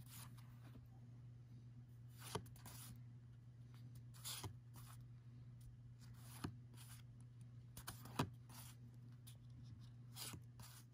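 Pokémon trading cards flipped through by hand, a card slid off the stack every second or two with short, faint swishes and snaps, over a steady low hum.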